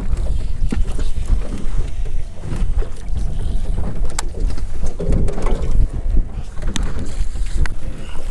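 Wind rumbling on the microphone and water lapping against the hull of a small metal fishing boat, with a few sharp clicks.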